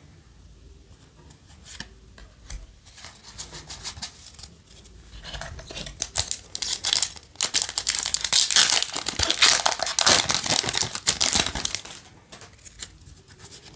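Foil wrapper of a Yu-Gi-Oh! booster pack crinkling and being torn open by hand. It starts about five seconds in and is loudest for a few seconds before it stops, followed by quieter handling of the cards.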